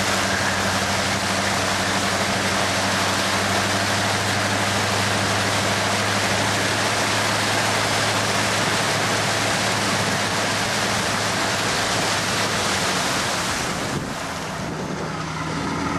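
Floodwater rushing and splashing against the side of a Hummer H1 as it drives through, over the steady drone of its engine. The splashing eases a little near the end.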